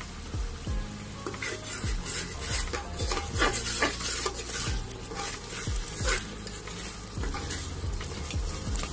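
Spatula scraping and stirring onion paste and ground spices in a metal pan of hot oil and ghee, about two strokes a second over a steady sizzle. The masala is being fried down (koshano) before the meat goes in.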